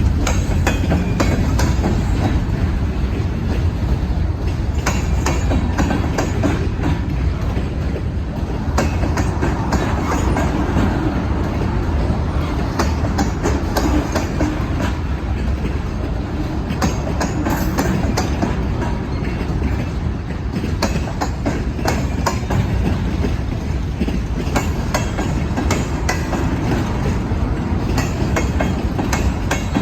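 CSX freight train cars rolling past, a steady rumble with frequent clicks of the wheels over the rail joints.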